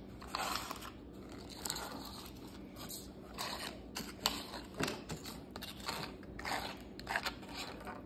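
Irregular rustles, scrapes and small clicks of miniature plastic toys and their packaging being handled and shifted around on a surface.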